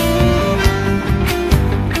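Instrumental passage of a chacarera: acoustic guitar with regular drum strokes, with no singing.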